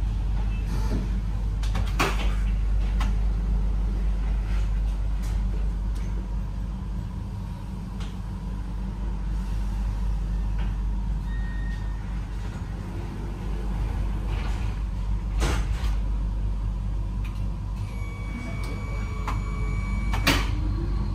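Railway station ambience: a steady low rumble with sharp knocks or clunks about two seconds in, about fifteen seconds in and near the end, and a held high beep lasting about two seconds just before the last knock.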